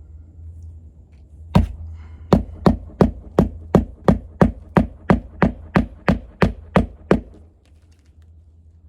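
Hammer driving roofing nails by hand through an asphalt shingle: one blow, a short pause, then a steady run of about fifteen blows at roughly three a second that stops about two seconds before the end.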